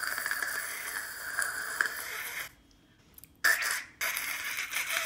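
A woman imitating with her mouth the noise a stovetop moka pot makes when the coffee is ready: a long hissing, spluttering stretch, then after a short pause two shorter bursts.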